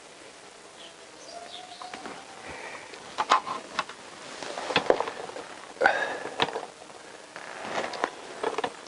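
Birds chirping and calling in the background, with a few short, light knocks and rustles scattered through.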